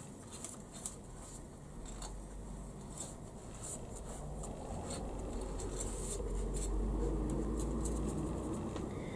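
Aluminium foil crinkling and rustling in scattered crisp ticks as a paintbrush works paint over it. A low rumble swells in the second half.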